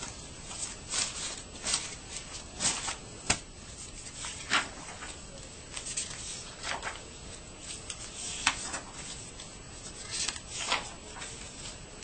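Sheets of drawing paper rustling as a hand lifts and turns them over on a stack: a dozen or so brief, irregular swishes over a steady hiss.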